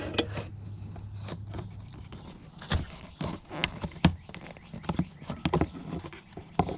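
Irregular clicks and knocks of hand tools being handled and shifted about while a longer screwdriver is fetched.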